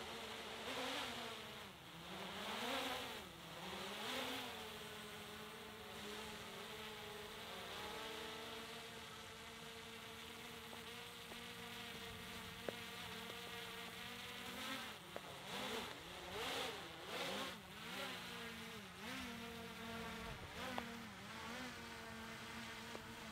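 Small quadcopter drone flying overhead, its propellers making a steady buzzing whine. The pitch swoops up and down several times as it is steered, mostly in the first few seconds and again in the second half.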